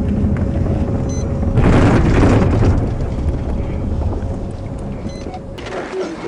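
Road and engine noise inside a police cruiser as it slows on the shoulder, a steady low rumble that grows quieter as the car nearly stops. A brief rush of noise comes about two seconds in.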